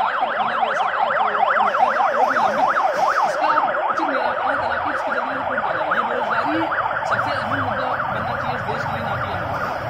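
Emergency vehicle siren wailing in a fast up-and-down yelp, several sweeps a second, easing off somewhat in the second half.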